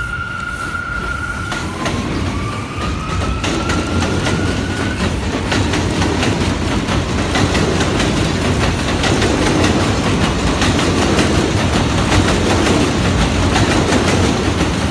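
Subway train pulling out: a steady high tone stops about a second and a half in, then a motor whine rises in pitch for a few seconds as the train accelerates, followed by a growing rumble and rapid clatter of wheels over the rails.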